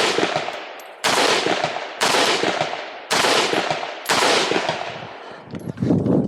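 Saiga .223 AK-pattern semi-automatic rifle firing single shots about a second apart, five in all, each trailing off in a long echo. Near the end come a few lower knocks and rattles.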